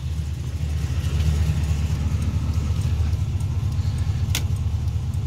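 Pickup truck's engine idling through long-tube headers and a stainless exhaust: a steady, deep, evenly pulsing low note. A sharp click about four seconds in.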